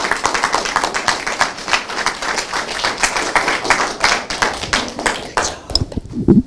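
Audience applauding, a dense patter of many hands clapping that thins out and dies away about five and a half seconds in.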